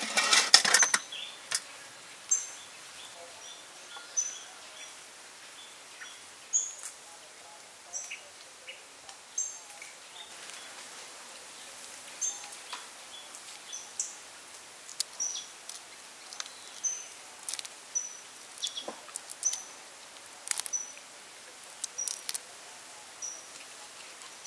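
A metal bowl clatters as it is set as a lid over a steel wok at the start. Then small clicks and crackles of raw shrimp shells being peeled by hand, with short high bird chirps repeating every second or so.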